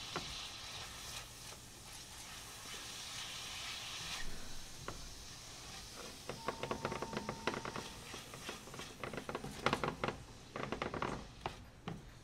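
Garlic, ginger and shallots sizzling in hot chicken fat in a pan, a steady hiss. From about halfway in, a utensil scrapes and knocks against the pan in quick strokes as the aromatics are stirred.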